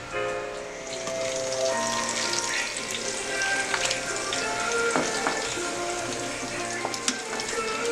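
Pork belly (liempo) frying in a hot pan: a steady sizzle with scattered pops.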